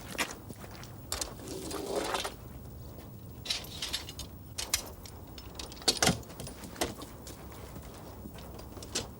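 Scattered knocks and clinks of hand work, with a short scraping rush about a second in and a sharper knock about six seconds in.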